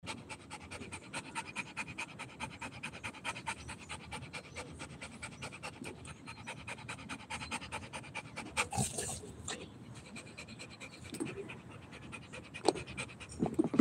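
Rottweiler panting hard with its mouth open, a fast, even rhythm of short breaths that eases off about two-thirds of the way through, followed by a few short louder sounds near the end.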